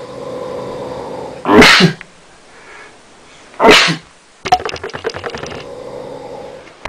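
A sleeping person snoring. Steady snores are broken by two loud, sharp snorts about two seconds apart, then by a quick rattling flutter for about a second before the snoring settles again.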